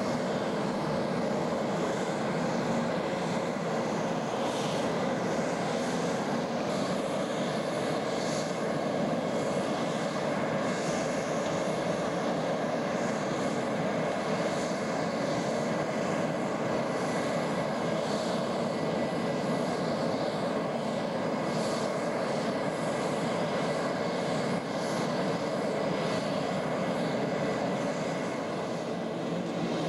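Jet aircraft engines running steadily: an even, dense rush of noise with a faint steady whine over it.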